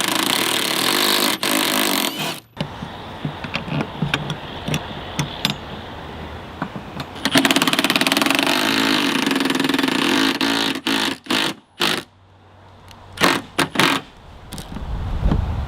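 Power tool, likely a cordless impact driver, run in two bursts on the bolt that holds the antenna mount bracket: a rapid hammering rattle for the first two seconds and a longer burst of the motor several seconds later. A few sharp clicks and knocks follow near the end.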